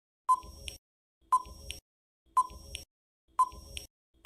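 Quiz countdown-timer sound effect ticking steadily about once a second, with four ticks, each a short sharp beep followed by a fainter click.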